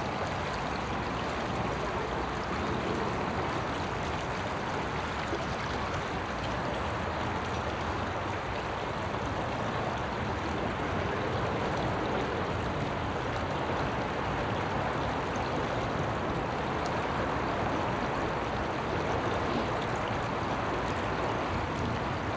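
Steady rush of running water from a small river, an even hiss that holds without a break.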